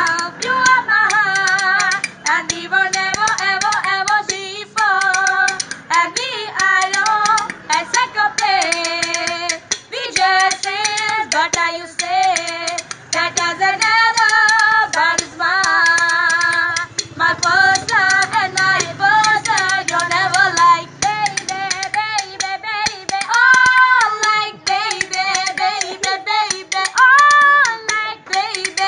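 A high-pitched voice singing a Punjabi song with sliding, ornamented melody lines, over a steady rhythm of sharp percussive clicks.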